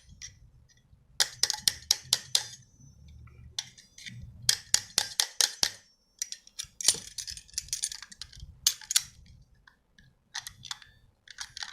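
Light hammer strikes on metal in quick runs of several taps, knocking a seized ball bearing off the shaft of an air-conditioner outdoor-unit fan motor a little at a time.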